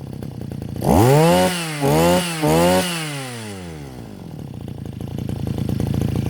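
Small 23cc two-stroke brush cutter engine revved up three times in quick succession, then falling back to a steady low idle. The engine stops abruptly near the end, with its idle set low.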